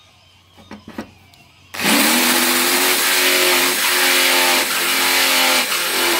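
Corded electric drill with a step drill bit boring a hole through a car's sheet-metal front guard. It starts suddenly a little under two seconds in, its motor whine rising briefly, then running steady and loud under load with a harsh metal-cutting noise over it.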